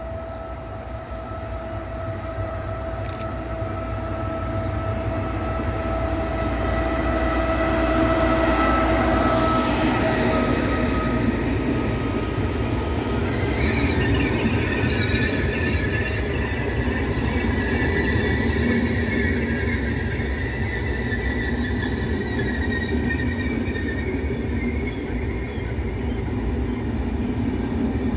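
Trenitalia Vivalto double-deck regional train coming into the station. A steady whine over a rumble grows louder over the first several seconds as it approaches, then high wheel squeal sets in as the carriages roll past.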